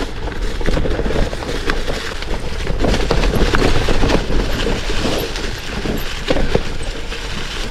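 Kona Rove LTD gravel bike on 650b Panaracer GravelKing tyres rolling over a rocky, stone-strewn trail: tyres crunching over loose stones while the bike rattles and clicks without a break.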